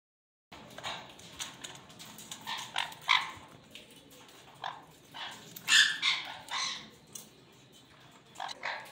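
Sun conures giving short squawking calls in irregular bursts, the loudest about six seconds in.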